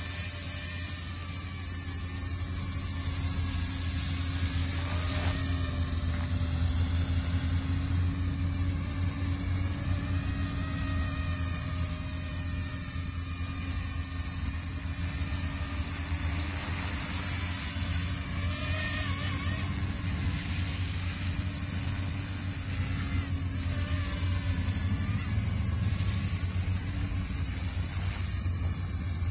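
Blade 230S electric RC helicopter in flight, its carbon-fibre and metal rotor head spinning: a steady high motor whine over the low buzz of the rotor blades. It rises and falls in loudness and pitch as the helicopter manoeuvres.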